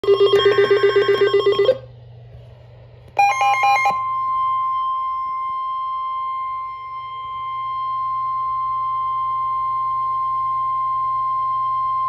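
NOAA Weather Radio receivers going off for an incoming severe thunderstorm warning. A rapid electronic beeping lasts under two seconds. After a short break, a brief warbling burst of tones gives way to the steady, single-pitched 1050 Hz warning alarm tone, held for about eight seconds.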